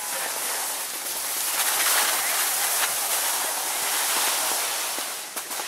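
Skis sliding and scraping over packed snow: a steady hiss that swells about a second and a half in and eases off near the end, with a few clicks at the very end.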